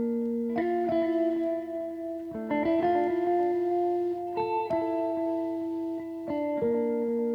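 Background music: plucked guitar chords that change every second or two and ring out between strokes.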